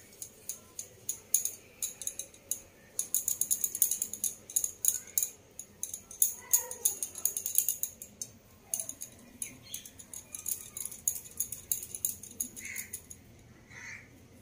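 Bangles on a woman's wrists clinking and jingling in quick, irregular clicks as she rolls besan laddu mixture between her palms. The jingling stops about a second before the end.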